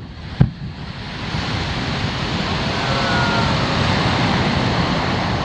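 A firework boom about half a second in, followed by a rushing noise that swells over the next few seconds, with a few faint whistles near the middle.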